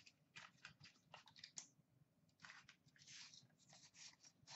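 Faint, irregular rustling and scraping of cardboard packaging as a Leaf Ultimate Hockey box is opened and its inner card box handled and slid out, in a string of short strokes.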